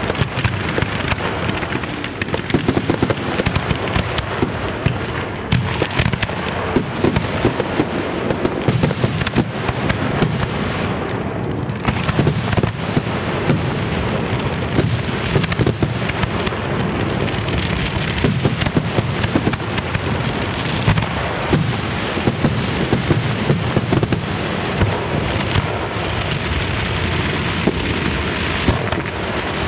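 Large professional fireworks display: aerial shells and ground-level effects going off continuously, a dense stream of bangs and crackling with no pause.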